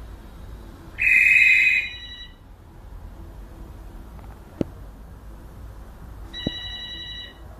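African grey parrot imitating a telephone ringing: two loud electronic-sounding rings about a second each, the first about a second in and the second near the end, with a sharp click or two between them.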